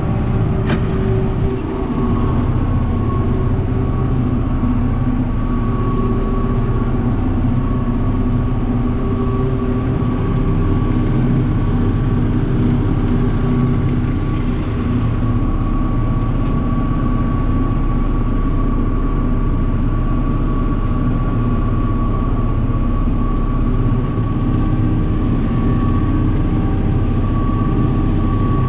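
John Deere 7600's six-cylinder diesel running steadily under load while the tractor pulls a Rhino batwing rotary cutter through pasture grass. A steady high whine sits above the engine note.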